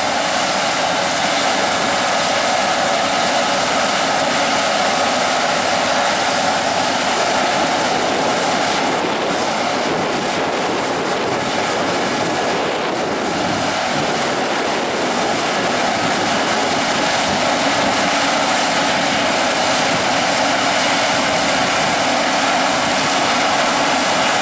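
Heavy harvest machinery running steadily at working speed: a large diesel engine and driveline making a loud, even drone with no break.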